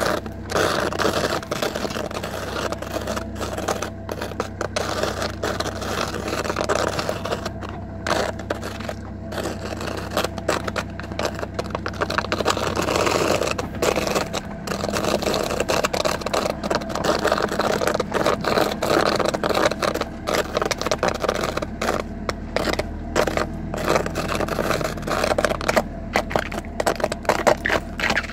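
Brown leather knee-high boots repeatedly scraping and rubbing against a car trunk's floor, an irregular, continuous scuffing, with a low steady hum underneath.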